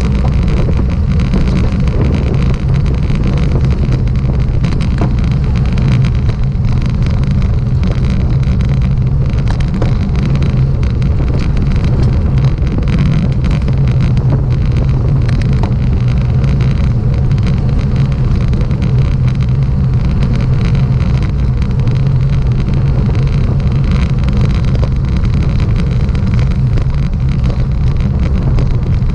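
Steady road noise from travelling along the road: a low, even drone with wind buffeting the microphone, unbroken throughout.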